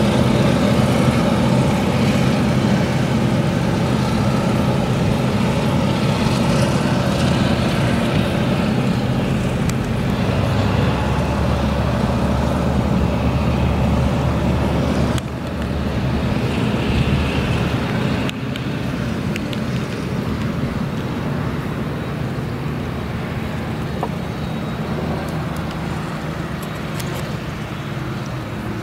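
Claas Jaguar 970 forage harvester's MAN V8 engine running under load while it chops sorghum, a steady heavy drone with several layered engine tones, mixed with the tractor pulling the trailer alongside. It gets gradually fainter as the machines move away.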